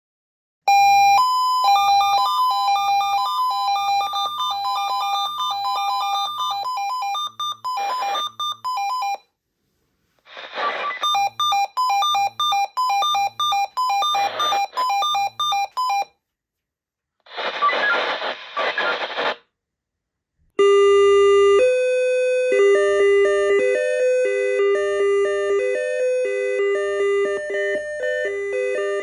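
Swissphone Quattro analogue fire-brigade pager sounding its alert: electronic beeping melodies of rapidly alternating tones, broken by short bursts of noise. Several alarm loops come in one after another, the last about two-thirds through with a lower-pitched melody.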